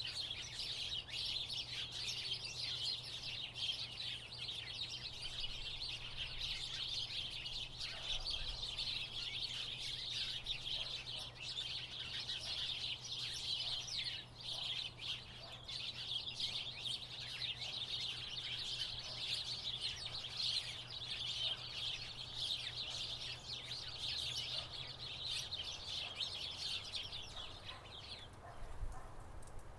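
A flock of house sparrows chirping in dense, overlapping chatter, which thins out suddenly near the end.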